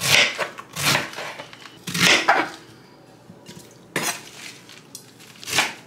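Large kitchen knife shredding a head of cabbage on a cutting board: about five separate cutting strokes at uneven gaps, each a sharp, brief sound of the blade going through the leaves onto the board.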